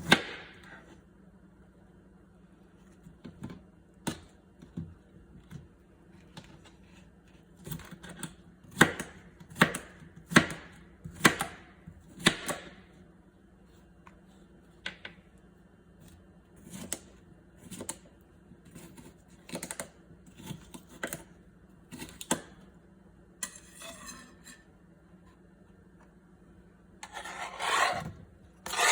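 Kitchen knife cutting down onto a cutting board: separate sharp knocks, roughly one a second, loudest in the middle stretch. Near the end there is a longer, louder scraping sound.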